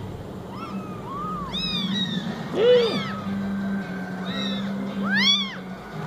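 23-day-old kittens mewing repeatedly: about eight short, high-pitched mews, each rising and then falling in pitch, the loudest about two and a half seconds and five seconds in. The owner takes their crying for missing their mother.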